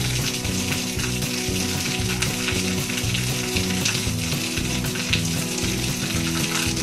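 Background music with a steady sizzling hiss over it.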